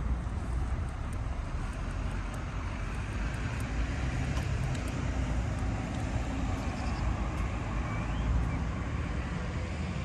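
Steady low rumble of distant road traffic, with a short bird chirp about seven seconds in.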